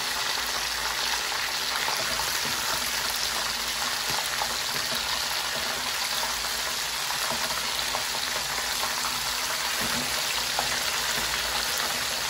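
Flour-dredged thick pieces of salt cod frying slowly in oil that is not too hot, a steady sizzle with a few faint ticks.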